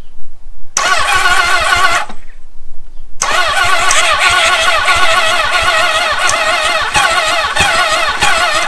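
Honda CB750's inline four-cylinder engine cranked on its electric starter, primed with brake cleaner and the choke on, for a first start after years standing. A short burst of cranking, a pause, then a longer run about three seconds in, the starter's whine wavering up and down with each compression.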